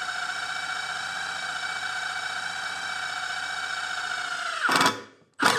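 Milwaukee M18 Fuel Gen 3 impact driver hammering a 7/32-inch titanium drill bit through half-inch-thick steel angle iron: a steady, high buzzing hum. Near the end it dips slightly in pitch and stops as the bit breaks through, followed by two brief loud noises.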